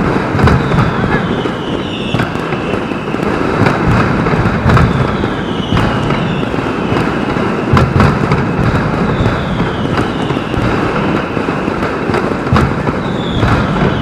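Pirotecnia Europlá mascletà in full swing: a dense, continuous barrage of firecracker bangs, with a falling whistle from whistling fireworks every two seconds or so. Heard through an action camera's waterproof housing.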